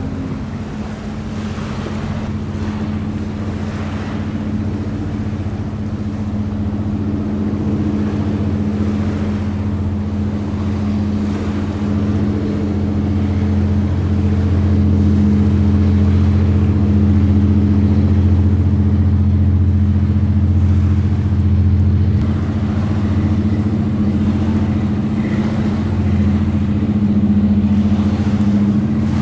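Pilot boat's engine running with a steady low hum, growing louder over the first half and then holding level.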